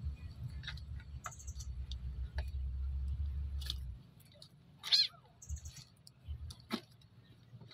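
A kitten meows once about five seconds in, a short high cry falling in pitch. A few light clicks and taps come before and after it, and a low rumble runs under the first four seconds.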